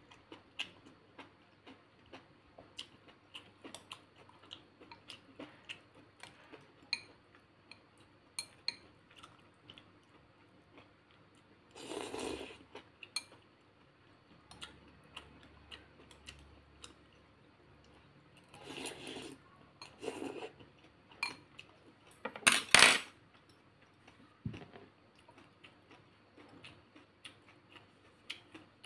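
Metal chopsticks and spoon clinking and scraping against a ceramic soup bowl in many small, light clicks while eating noodle soup. A few louder rushing noises stand out, the loudest about two-thirds of the way in.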